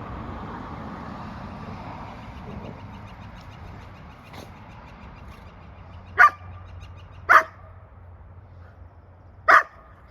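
Golden retriever barking in play: three short barks in the second half, the second about a second after the first and the third about two seconds later.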